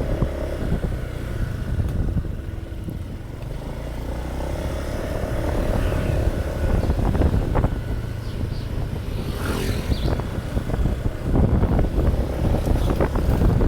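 Motorcycle engine running with wind rumbling on the microphone while riding.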